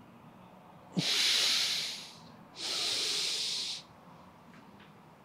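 A person taking two loud, hissing breaths, each about a second long and a little over half a second apart. This is paced yoga breathing timed to a leg raise and lowering.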